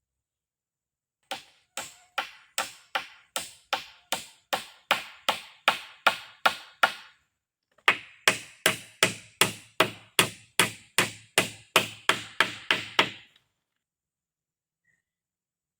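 Rapid, evenly spaced blows of a hand tool striking, nearly three a second, in two runs of about five seconds each with a short pause between.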